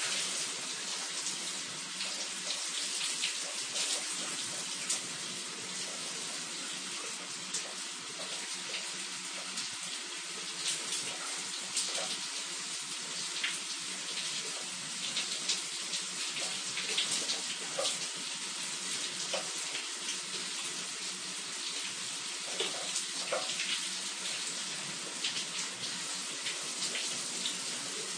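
Shower running steadily: a constant hiss of falling water with many small splashes and drips.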